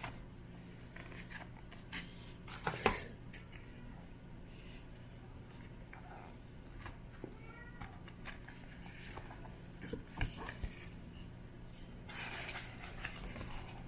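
Handling of a new keyboard case and its packaging: scattered light clicks and taps, a sharper knock about three seconds in, and rustling near the end.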